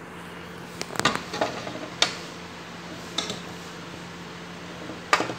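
Metal spoon knocking and scraping against a cooking pot and a ceramic serving dish as cooked rice pilaf is dished out. A few sharp clinks come about one, two, three and five seconds in, over a steady low hum.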